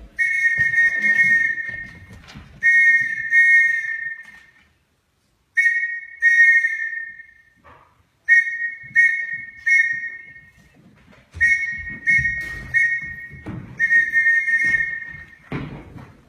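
A Morse code message sent as a series of about a dozen high-pitched whistle-like tones: short dots and longer dashes, grouped into letters by pauses.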